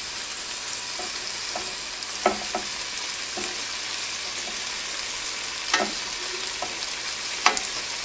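Marinated chicken thighs sizzling on the Ninja Foodi Grill's hot grill grate, a steady hiss, as they are turned over with tongs; a few light clicks of the tongs against the grate.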